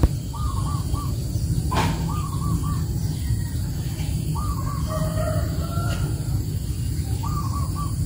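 A bird calling in short runs of three or four notes, four times, over a steady low rumble, with one sharp click about two seconds in.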